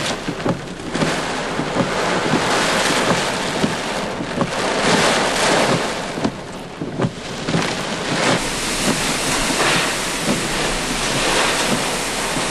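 Hurricane wind gusting with driving rain, the wind buffeting the microphone, with a few sharp knocks.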